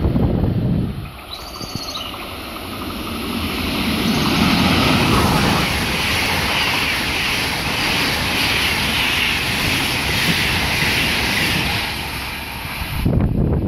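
EuroCity passenger train of Swiss coaches passing through the station: wheels rolling on the rails in a steady rush that builds to its loudest about four to five seconds in, then holds and slowly fades as the train draws away. A receding freight train fades out in the first second.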